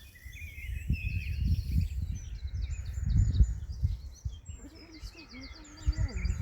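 Birds chirping and trilling in quick repeated phrases, over an uneven low rumbling noise on the microphone. A voice is heard briefly near the end.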